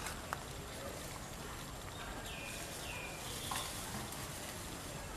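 Newborn macaque giving two short, high squeaks that fall in pitch, about half a second apart and about two seconds in, over a steady outdoor hiss. A single sharp click comes near the start.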